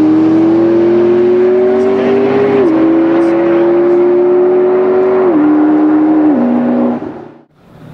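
McLaren supercar's twin-turbo V8 accelerating hard away through the gears. The engine note climbs, then steps down at three upshifts, and the sound cuts off about seven seconds in.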